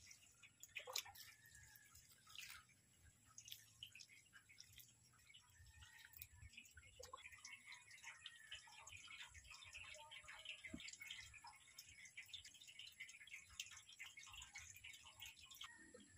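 Faint dripping and trickling of dissolved fertilizer solution poured from a small can onto the soil at the base of tomato seedlings, with scattered small clicks and crackles.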